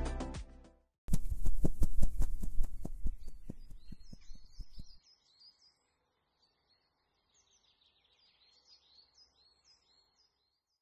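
Logo sound effect: a quick run of sharp percussive hits starts about a second in and fades away over a few seconds, followed by faint high bird chirps. The first half second is the tail of background music fading out.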